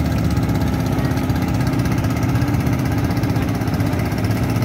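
Outrigger pump boat's engine running steadily at an even pitch.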